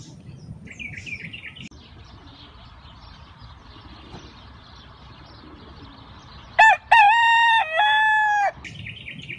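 Rooster crowing once, about two-thirds of the way in: a short first note, then a long held call lasting about two seconds that drops a step partway through. Faint small-bird chirping before and after.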